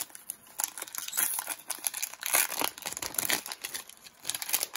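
Foil wrapper of a pack of baseball cards being torn open and crumpled by hand: an irregular run of crinkling crackles.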